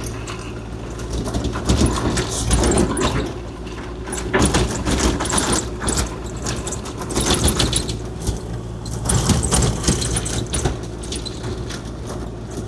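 Kubota KX040-4 mini excavator's diesel engine running steadily, with intermittent clattering and rattling noises over it every second or two.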